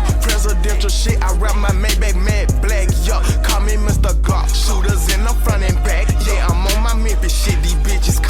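Hip hop music: a trap beat with a heavy, sustained deep bass, sharp drum hits several times a second, and wavering pitched lines over it.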